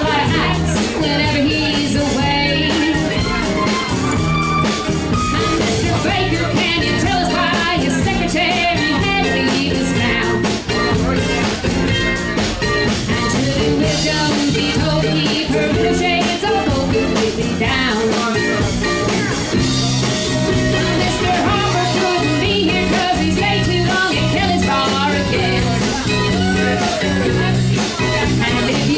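Live acoustic band playing a country song: strummed acoustic guitars and a mandolin with drums, and a woman singing lead.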